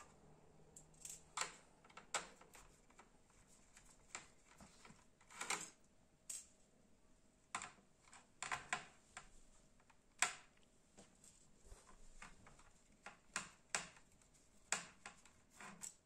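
Small metal laptop screws being handled and set down in groups on a hard surface: faint, light clicks and taps at irregular intervals.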